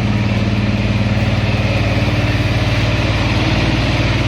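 Truck engine idling sound effect for a toy oil tanker truck: a steady, loud engine idle with a fast, even pulse that starts abruptly.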